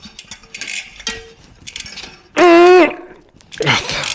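Light metallic clicks and scrapes as a road bike rear hub's freehub body is knocked and pushed by hand to try to work it loose, with a loud, short, wavering vocal exclamation in the middle and another voice sound near the end.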